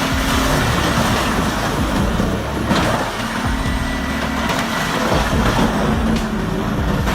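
Large wood chipper running steadily: an engine drone under a dense noise of material being chipped, with one sharp knock a little under three seconds in.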